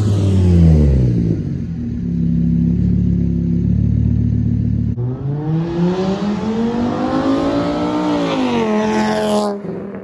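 Straight-piped, tuned VW Jetta 2.5 inline-five driving past: its exhaust note drops in pitch during the first second and then holds a steady drone. About halfway it is heard accelerating hard, revs climbing for about three seconds before falling again near the end.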